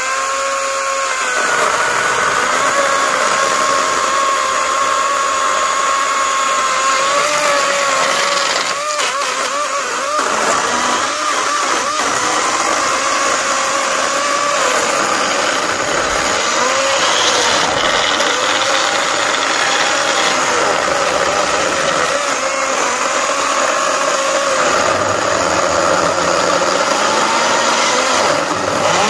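Greenworks 80V cordless electric chainsaw running at full speed through oak slabs with a high, steady motor whine. It finishes spinning up at the start, and its pitch sags and wavers several times as the chain bites into the wood.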